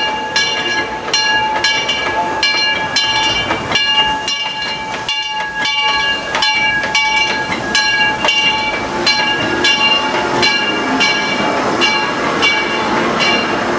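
Steam locomotive bell on the Disneyland Railroad's engine No. 4, Ernest S. Marsh, ringing steadily about twice a second as the train pulls into the station. Under it is the rumble and clatter of the train rolling past.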